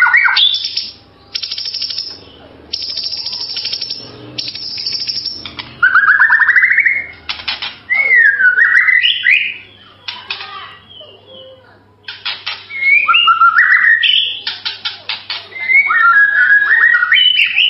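White-rumped shama (murai batu) singing loudly, alternating harsh rattling bursts with clear whistled phrases that swoop up and down, under a faint steady low hum.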